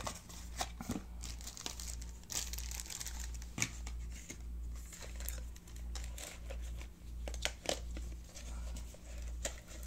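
Cardboard product boxes and plastic packaging being handled: crinkling and rustling with scattered light taps and clicks. Underneath runs a low hum that pulses about twice a second.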